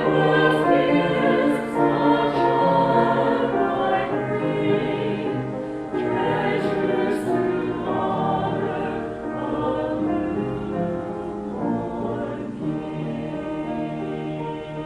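Choir singing, many voices sustaining chords together and slowly getting quieter toward the end.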